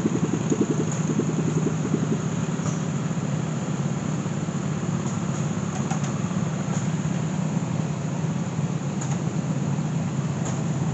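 An engine idling steadily, running evenly with no change in speed.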